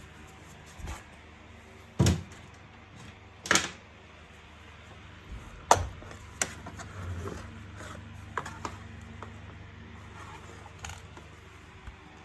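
Handling noises: about nine irregular knocks and clicks, the loudest in the first half, over a faint steady hum.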